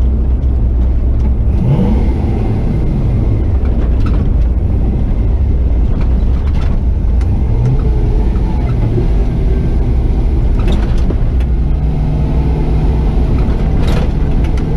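Chevy 4x4 truck with a swapped 6.0 LS V8 and SM465 four-speed transmission driving, its engine running steadily under load. The engine rises in pitch briefly a couple of times, and a steady drone comes in near the end.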